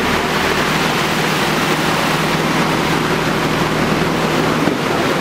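Muddy floodwater rushing through a street, a loud steady rushing noise, with an engine running steadily underneath until near the end.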